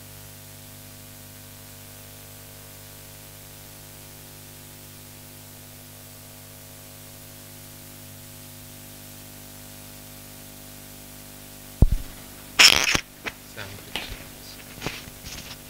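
Steady electrical hum on the microphone line, then about twelve seconds in a sharp knock followed by loud rustling and a run of clicks: handling noise as a clip-on microphone is passed over and fitted.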